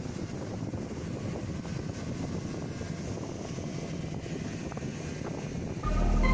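Steady, rough low rumbling noise without a clear pitch. Loud music comes in sharply near the end.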